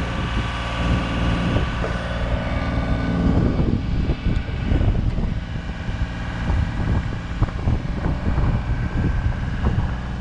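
Steady mechanical hum of a boom lift's power unit running as the basket is lowered. Wind buffets the microphone in gusts from about three and a half seconds in.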